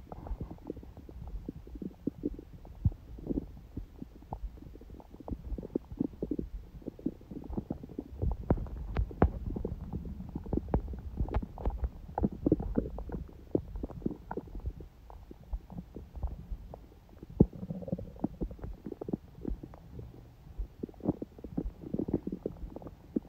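A person's stomach gurgling and rumbling. A low rumble runs under an irregular run of small pops and gurgles, busiest in the middle.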